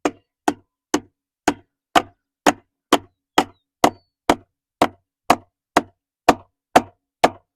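A nail is hammered into wood with the base of a Glock magazine fitted with a Centurion Arms mag extension. The sharp knocks come steadily, about two blows a second, sixteen in all. The nail goes in at an angle and will not drive all the way.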